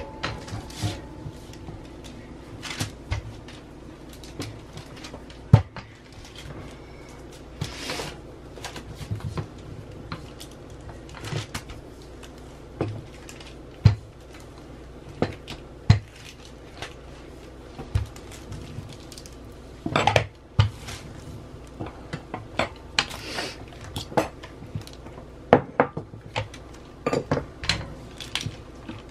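Rolling pin working a sheet of dough on a countertop: irregular knocks and clacks as the pin rolls, shifts and is pressed down, a few of them sharper.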